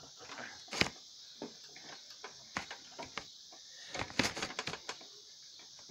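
Steady high chirring of insects, with scattered clicks and knocks as a three-wheeled bike bumps over grass: one sharp knock about a second in and a quick cluster of rattles around four seconds in.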